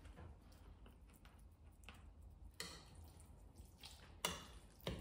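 Metal fork clinking and scraping against a ceramic bowl while noodles are stirred, with soft wet clicks and a few sharper clinks, the loudest about four seconds in.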